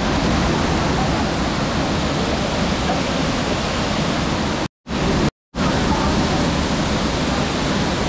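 Steady roar of a waterfall pouring over a rock face, cut off twice by a brief silence just after the middle.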